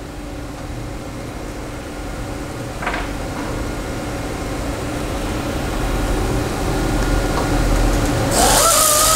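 A steady low hum grows louder under a single click. Near the end, a pneumatic tool runs for about a second and a half, with a hiss of air and a whine that rises and wavers. It is driving the fasteners up into the quick-change plate to clamp the trunnion.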